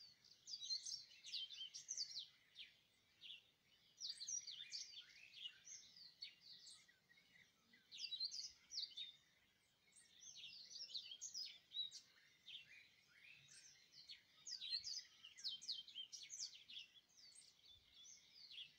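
Faint chirping of small birds: many short, quick chirps, overlapping and scattered throughout.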